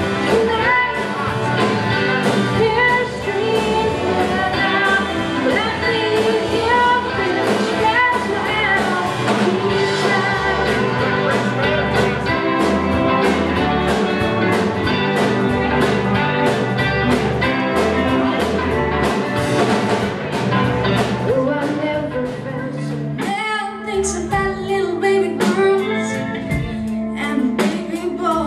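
Live band music: singing over acoustic and electric guitars, drums and keyboard. About 23 seconds in it cuts abruptly to a different song led by electric guitar and drums.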